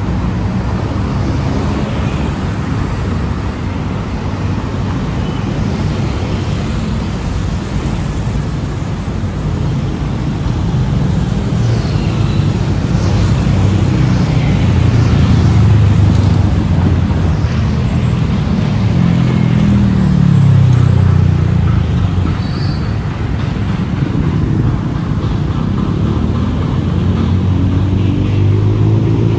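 Road traffic: car and bus engines running steadily, with vehicles passing close by, one engine note sliding in pitch about two-thirds through and another rising near the end.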